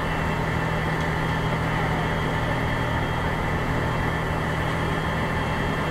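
Fire engine's engine running steadily at a constant idle-like hum, heard from inside the cab.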